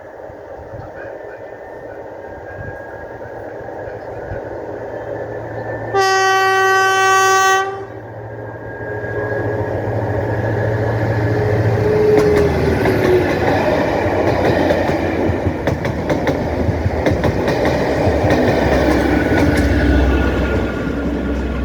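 A pair of Class 73 electro-diesel locomotives approach and pass. One long warning blast on the horn, a single steady note of about a second and a half, sounds about six seconds in as a warning to people at the platform edge. Then the locomotives' engine and wheel noise grows loud as they run by.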